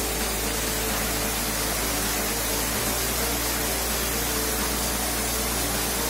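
Waterfall cascading over rock ledges into a pool: a steady, even rush of falling water.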